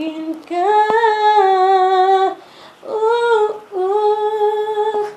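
A woman singing unaccompanied, holding long notes that step up and down in pitch, with a short break about halfway through.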